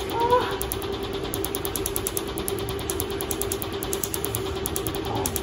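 Laser tattoo removal machine running with a steady hum and a rapid, even ticking, the strange noise the machine has started making.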